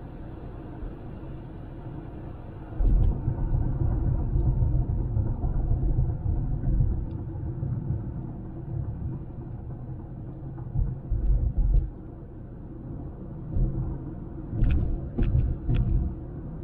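Low rumble of a Honda Civic driving: road and wind noise that rises and falls, growing louder about three seconds in.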